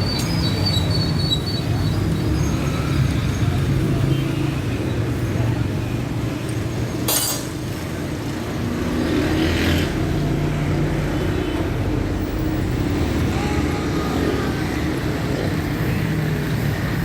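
Steady low machine or motor rumble with voices in the background, and a single sharp knock about seven seconds in.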